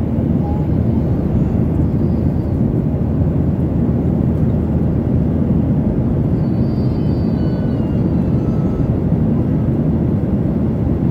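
Steady airliner cabin noise: a dense, even rumble of jet engines and airflow heard from inside the passenger cabin.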